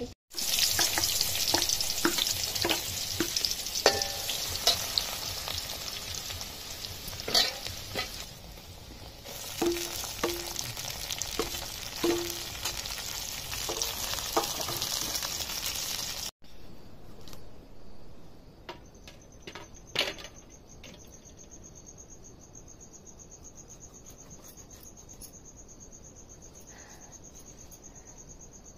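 Chopped onions and tomatoes sizzling in oil in a metal karahi, a steel ladle stirring through them with clicks and scrapes against the pan. About halfway through the sizzling cuts off, leaving quiet surroundings with a cricket chirping steadily and a few scattered clicks.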